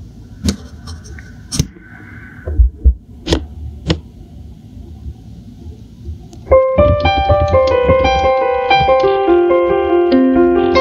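A few knocks and thumps, then an Alesis digital keyboard starts playing about six and a half seconds in: a steady flow of sustained notes and chords in a piano-like sound.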